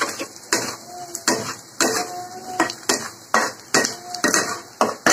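Metal spatula scraping and knocking against a kadhai about twice a second, stirring onions and peanuts frying in oil, with the oil sizzling underneath. Some strokes leave a brief metallic ring.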